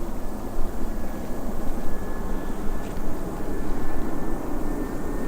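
Jet engines of an Airbus A320-214 on landing approach: a steady, even engine noise with a faint high whine that rises slightly near the end.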